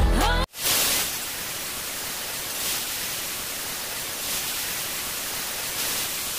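Music cuts off about half a second in, followed by a steady, even static hiss like white noise, with slight swells.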